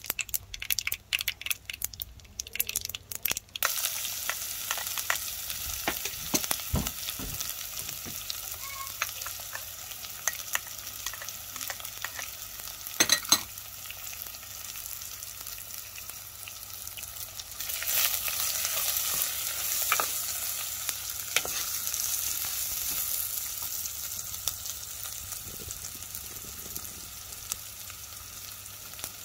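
Mustard and cumin seeds crackling and popping in hot oil. About three and a half seconds in this gives way to a steady sizzle as chopped onions, garlic, curry leaves and pandan leaves fry and are stirred in the clay pot. Near the middle there are a couple of sharp knocks.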